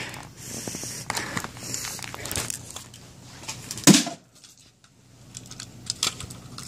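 Plastic clicks, creaks and crackles from a computer mouse being handled and pried at by hand to get the scroll wheel out, with one loud thump about four seconds in.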